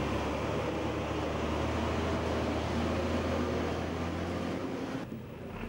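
Goods truck engine running with a steady low drone and road noise, which fades somewhat about five seconds in.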